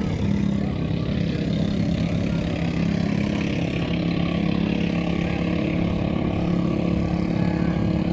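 A boat engine running steadily at a constant pitch, a low hum with some splashing and wind noise above it.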